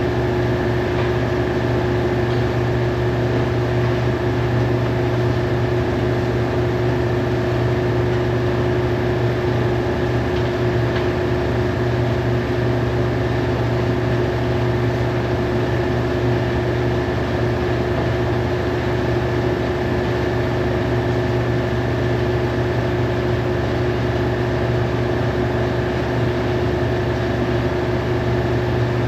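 Produce washing machine running steadily, a constant motor hum with several fixed tones.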